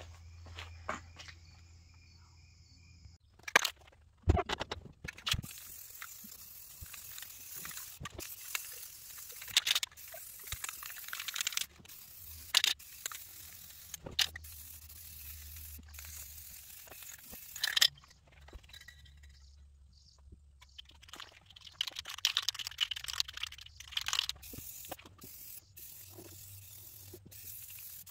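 Aerosol spray-paint can hissing in a long spray of about twelve seconds, starting about five seconds in, then a shorter spray of a few seconds near the end. A few sharp knocks come just before the first spray.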